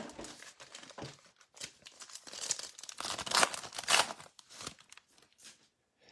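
Silver foil wrapper of a football trading-card pack crinkling and tearing as it is opened by hand, in irregular crackles, loudest about midway and dying away near the end.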